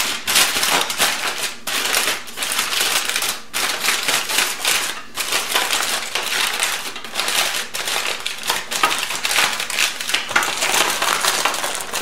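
Aluminum foil crinkling as hands fold the seams and crimp the ends tight around a wrapped chicken: a dense run of sharp crackles with a few brief pauses.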